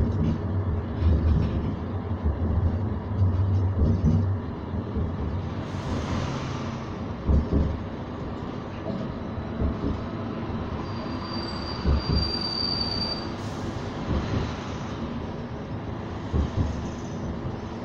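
Edinburgh tram (CAF Urbos 3) running along its street track, heard from inside the passenger cabin: a steady low motor hum for the first few seconds, then rumbling with dull thumps every few seconds. A thin high wheel squeal sounds for about two seconds midway.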